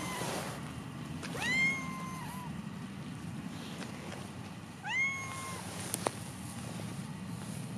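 Domestic cat meowing twice, a few seconds apart; each call rises quickly and then holds its pitch, and the first is the longer. A single sharp click follows about six seconds in.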